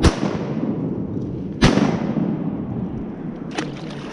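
Shotgun shots at a flying mallard: one right at the start and another about a second and a half later, each followed by a long rolling echo, then a fainter sharp crack near the end. The duck is missed.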